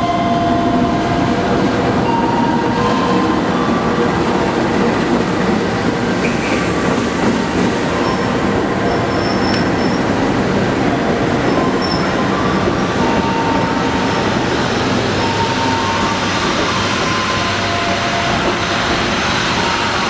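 Malabar passenger train pulling into a station: its diesel-electric locomotive passes, then the coaches roll by close at hand with a steady rumble of wheels on rail. Short squeals from the wheels come and go throughout.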